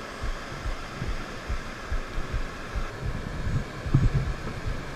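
Wind buffeting the microphone in irregular low rumbles, over the wash of surf breaking on the beach.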